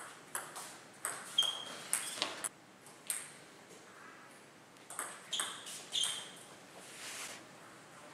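Table tennis rally: the plastic ball clicking sharply off the rubber bats and the table. A quick run of clicks fills the first two and a half seconds, with another run about five seconds in.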